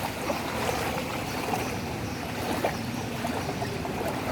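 Water sloshing and churning on a flooded street, with a steady low hum of vehicle engines as traffic moves through the water.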